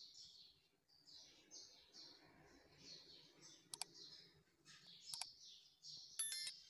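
Faint birds chirping over and over, with two sharp electronic clicks about four and five seconds in and a short stepped electronic chime near the end, the loudest sound.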